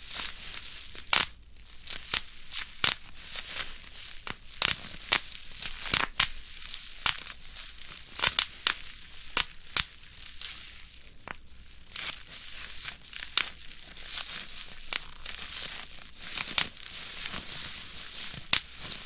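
Bubble wrap being crushed by hand: sharp single pops at irregular intervals, about one or two a second, over a steady crinkling of the plastic sheet.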